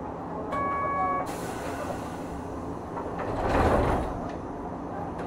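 Interior sound of a Hankai Tramway Type 351 tram car. A short steady electric tone sounds about half a second in. A louder rushing swell peaks about three and a half seconds in.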